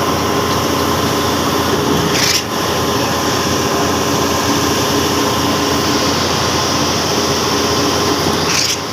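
Mercedes Actros truck-mounted concrete pump running steadily with a constant mechanical hum, broken twice, about six seconds apart, by a brief burst of hiss.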